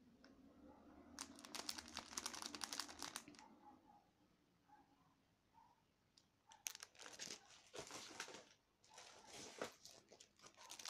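Clear plastic product packaging crinkling as it is handled. The first spell of crackling runs from about a second in for two seconds; after a quiet stretch it comes back in short bursts in the second half.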